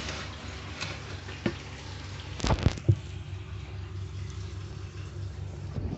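Handling sounds from a hand working through the artificial plants of a vivarium: light rustling, a click about one and a half seconds in, then a quick cluster of sharp knocks a second later, over a steady low hum.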